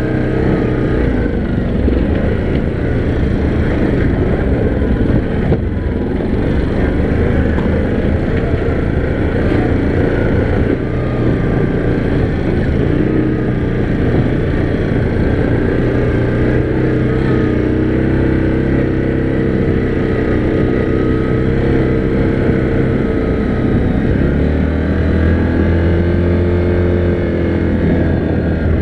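Yamaha Grizzly 700 ATV's single-cylinder engine running under way on the trail, with a dense rumble of riding noise beneath it. Near the end the engine note rises and falls back as the throttle changes.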